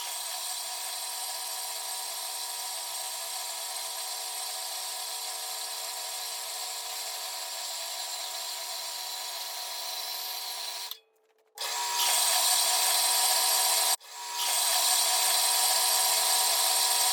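Electric power tool running steadily while cutting steel bar stock. The sound stops abruptly twice, at about 11 and 14 seconds, and is louder after the first stop.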